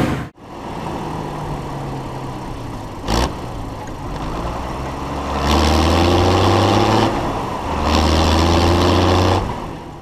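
IHC 956 XL tractor's six-cylinder diesel engine running at idle, with a single click about three seconds in, then getting markedly louder twice for about a second and a half each time, before fading out at the end.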